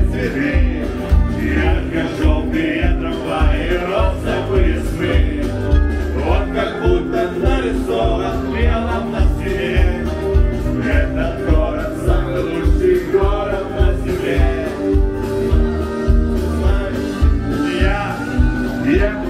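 Karaoke: a man singing through a microphone over a loud backing track with a steady beat.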